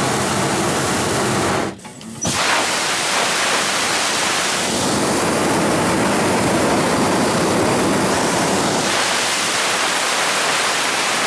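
Hot-air balloon propane burner firing: a loud, steady rush of flame, with a brief break about two seconds in before it blasts on again.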